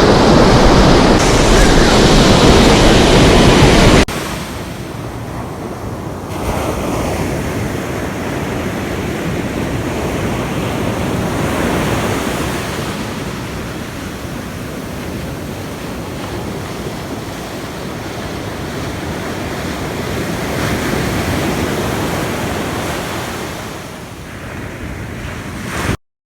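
Waves breaking on a beach, with wind buffeting the microphone loudly for the first four seconds. The sound then drops suddenly to quieter surf that swells and recedes several times, and cuts off just before the end.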